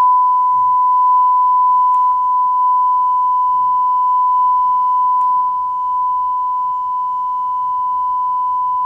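A steady 1 kHz sine test tone played through a Jawbone Jambox Bluetooth speaker, held at one pitch and level. It is being used to set the recording levels.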